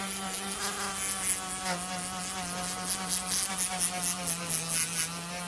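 Handheld rotary tool with a sanding drum running at speed and grinding against the metal sword hilt: a steady high motor whine over a gritty scratching hiss, dipping slightly in pitch about a second and a half in.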